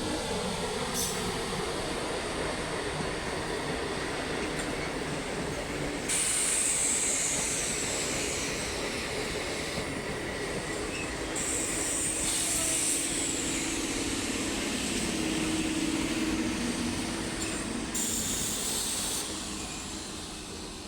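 Electric train running at speed: steady rumble and hiss of wheels on rail. A high hiss cuts in and out abruptly several times, with a high tone sliding downward about six seconds in and a steady hum through the middle. The sound fades away near the end.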